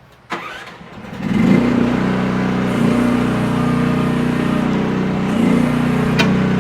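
Mini excavator's small engine starting and catching about a second in, then running steadily, with slight dips in pitch as it settles.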